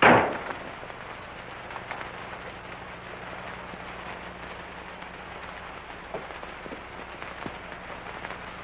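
One sharp, loud bang at the start that dies away within about half a second. It is followed by a steady hiss and hum from an old film soundtrack, with a few faint knocks near the end.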